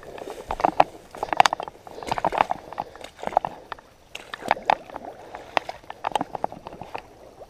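Boots wading through shallow, muddy pond water, with a slosh and splash at each step, coming irregularly about once a second.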